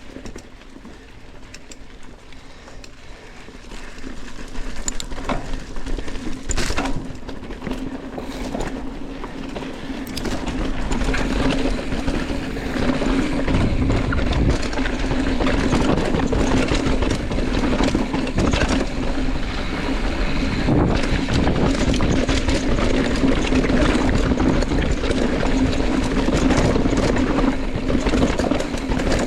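Rattling and rushing wind noise of a bike going down a rough dirt trail. It gets louder about four seconds in and again about ten seconds in, with a steady low hum underneath.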